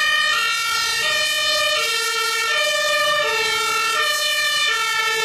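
Two-tone sirens (German Martinshorn) of a convoy of fire engines, alternating between a high and a low note, several sounding at once and out of step.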